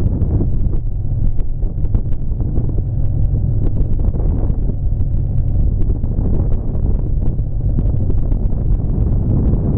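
Vehicle running down the road: a steady low engine and road rumble, with wind buffeting the microphone and small rattles.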